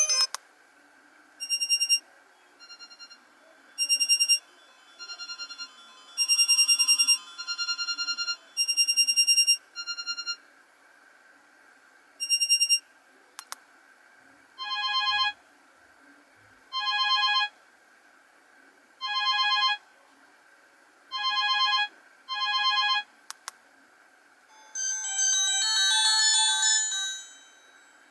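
Alcatel 1010D phone playing its built-in ringtones one after another, as electronic beeping melodies. First comes a quick tune of short beeps lasting about thirteen seconds. Then a short click and a tune of beep phrases repeated about every two seconds. After another click, a fast warbling trill runs for about three seconds near the end.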